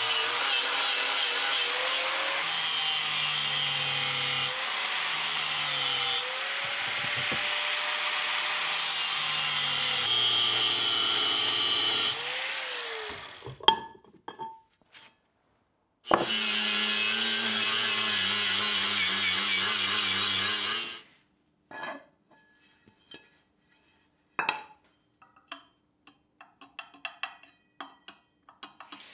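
Angle grinder grinding the inside of a forged steel skillet, its whine dipping and recovering in pitch as it is pressed on, for about 13 seconds, then a sharp knock. A few seconds later a drill runs steadily for about five seconds, boring into the pan's base, followed by scattered light metal clicks and taps.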